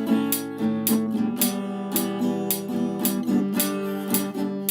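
Acoustic guitar music, plucked and strummed in a steady rhythm.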